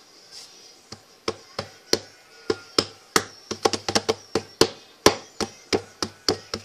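Shortbread dough being hit over and over on a work surface to close up its cracks: about twenty sharp knocks, roughly three or four a second, starting about a second in.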